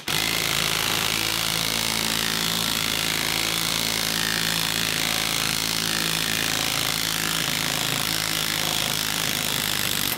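Cordless impact wrench hammering steadily as it drives the screw of a ball joint press, pushing a worn rubber suspension bushing out of a cast knuckle in one piece without burning the rubber out first.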